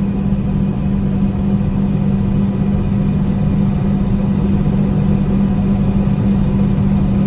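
John Deere 4400 combine running steadily under load: a constant engine drone with mechanical noise and no change in speed.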